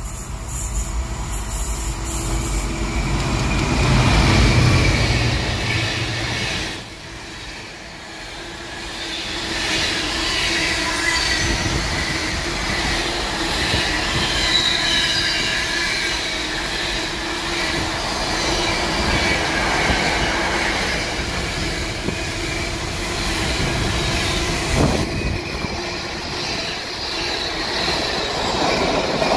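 Locomotive-hauled container freight train passing: the locomotive goes by loudest about four seconds in, then a long run of loaded container wagons rolls past with steady rumble and wheel squeal.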